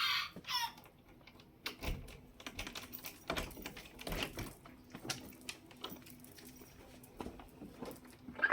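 Irregular light clicks and knocks of handling and movement while a shed is being opened, with brief high-pitched chirping sounds near the start and near the end.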